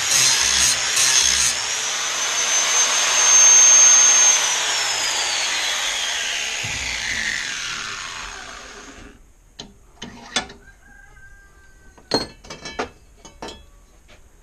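Angle grinder with a 40-grit flap wheel grinding a steel mower blade in short passes, then running free with a steady high whine. About four seconds in it is switched off, and the whine falls steadily in pitch as it spins down over several seconds. A few short sharp knocks follow near the end.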